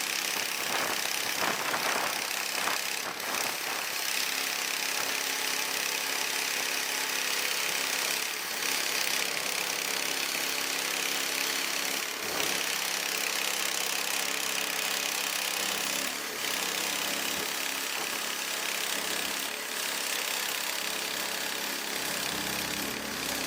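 Sawmill's engine running steadily, with a steady high hiss over the engine hum.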